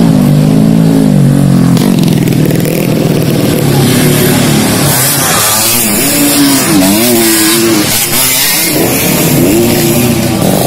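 Racing dirt bike engine revving hard, its pitch rising and falling with the throttle as the bike passes close about halfway through.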